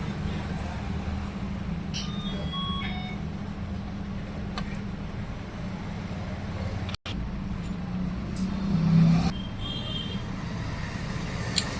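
Street traffic noise with a steady low hum. Short electronic beeps sound twice, and a vehicle swells louder just before the beeps return.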